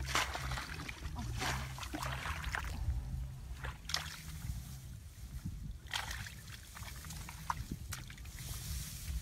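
Shallow muddy water sloshing and splashing in short bursts at irregular intervals, as hands grope through mud and puddles for fish.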